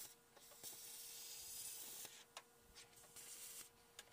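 Air-powered cut-off wheel cutting through the sheet-metal fender of a VW Karmann Ghia: a faint hiss of grinding that runs for about a second and a half, then comes in short stop-start bursts.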